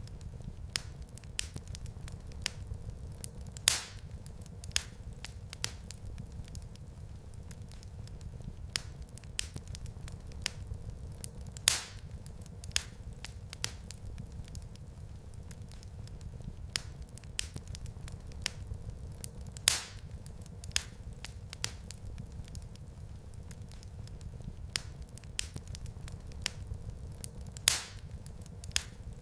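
Wood fire crackling in a fireplace: a constant scatter of small snaps over a low, steady rumble of flame. Four louder pops stand out, evenly spaced about eight seconds apart.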